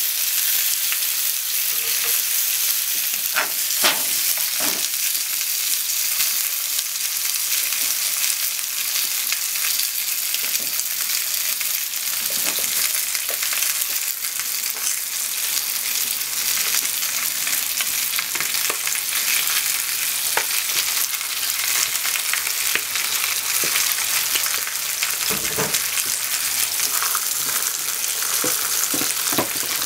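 Meat and sliced onions sizzling steadily in an oiled non-stick frying pan on a gas burner, with a few soft knocks now and then.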